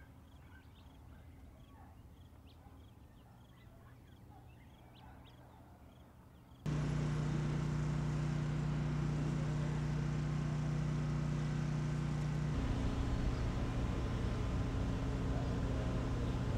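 Faint scattered bird chirps over quiet outdoor air. About a third of the way in, this gives way suddenly to a loud, steady engine hum with a low drone, which shifts slightly in pitch about three-quarters of the way in.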